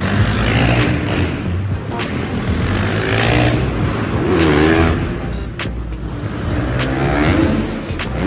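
Motocross bike engines revving, the pitch rising and falling with the throttle.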